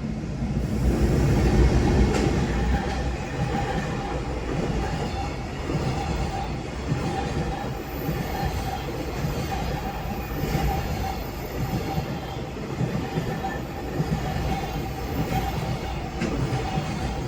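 Long freight train hauled by an EH500 electric locomotive passing over a level crossing, its wagons rumbling steadily over the rails, loudest about two seconds in. A Japanese level-crossing bell rings steadily over the train noise.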